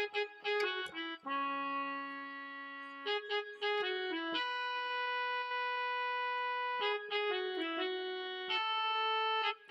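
Yamaha PSR-E233 portable keyboard playing a single-line melody on a reedy sustained voice. The phrase comes three times: a quick run of short notes, then one long held note.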